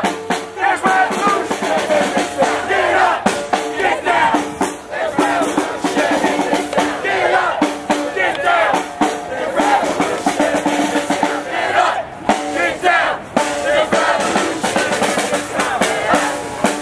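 Protest crowd chanting and shouting together over drumming.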